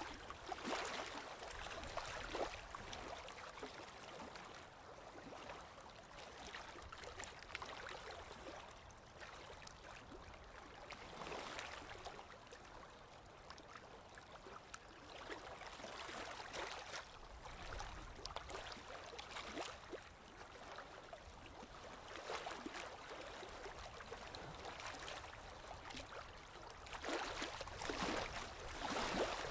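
Running water gurgling and splashing, a steady wash full of small splashes that swells louder now and then at irregular moments.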